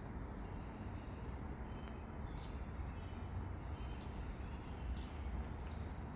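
A few faint, short chirps of small songbirds, one about two seconds in and another about four seconds in, over a steady low rumble.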